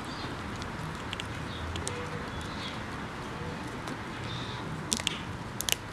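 Miniature pinscher gnawing a wooden stick, with a few sharp cracks of wood between its teeth about five seconds in and again just before the end.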